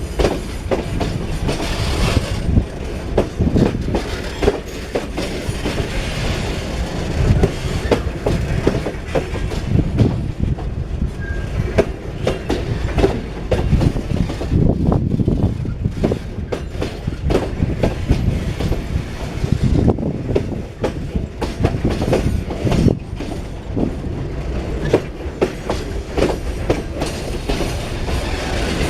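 Long loaded freight train rolling past, its wagons' steel wheels clacking over the rail joints in a steady, dense run of clicks over a continuous rumble.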